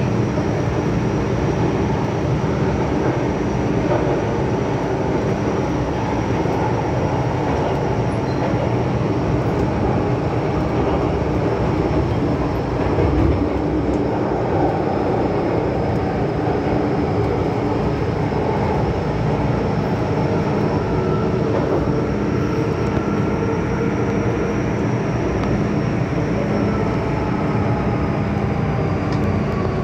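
Hong Kong MTR Kwun Tong Line M-Train, a Metro-Cammell electric multiple unit, running at speed, heard from inside the carriage: a steady rumble of wheels and running gear with a faint whine that drops in pitch near the end.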